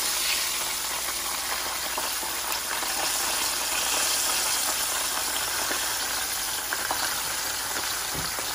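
Hot oil sizzling steadily in a frying pan as breaded whiting fillets deep-fry, with a few faint clicks.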